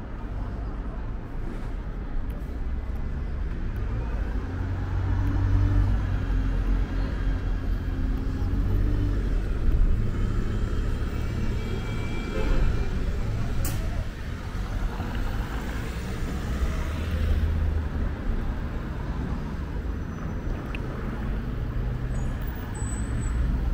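Road traffic passing on a city street, a steady low rumble of car and vehicle engines and tyres, with one short sharp click about fourteen seconds in.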